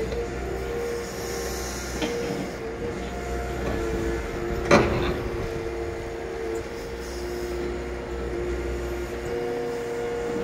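Liebherr 938 crawler excavator working, its engine and hydraulics running with a steady whine over a low rumble. A single loud bang a little under halfway through.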